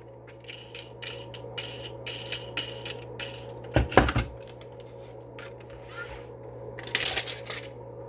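Metal screw-down phone back-glass clamp being opened: a quick run of small metallic clicks as its screws are turned, then one heavier metal knock about four seconds in, and a short scrape near the end as the plate comes away.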